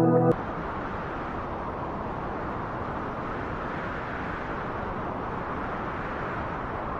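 Music cuts off abruptly just after the start, giving way to a steady, even rushing noise of outdoor ambience.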